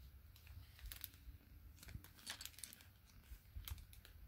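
Near silence with faint, scattered clicks and rustles from a handheld camera being handled.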